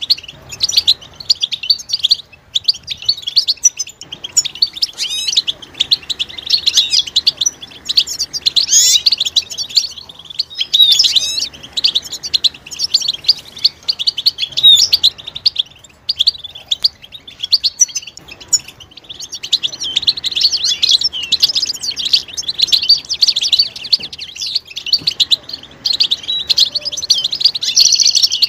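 European goldfinches twittering and chattering in their mating calls: rapid high chirps and trills that overlap and run on without a pause.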